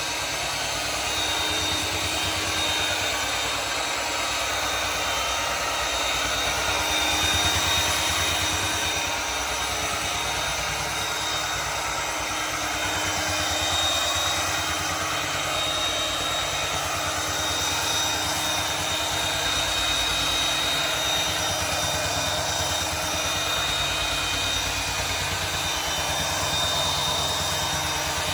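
Belt sander with an 80-grit belt running steadily on a hard hickory tabletop: a continuous sanding noise with a steady high whine on top, swelling and dipping slightly as it works.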